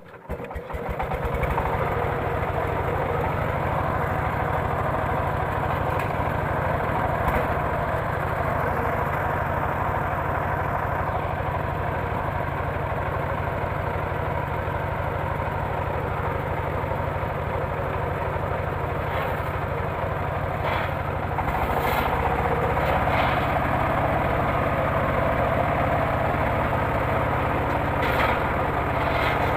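Engine driving a mobile circular sawmill, running steadily; its note shifts slightly about two-thirds of the way in, with a few short knocks.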